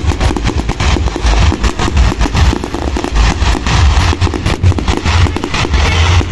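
Fireworks going off in a dense, rapid string of bangs and crackles over a heavy low rumble.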